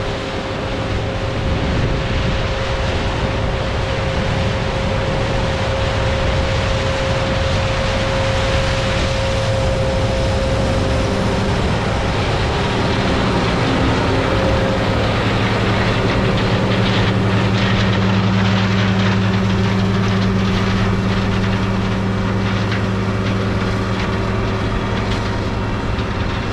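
John Deere 9650 STS combine running steadily at harvest, a continuous machinery drone. A steady whine in the first half fades out about halfway, and a deeper hum then grows louder.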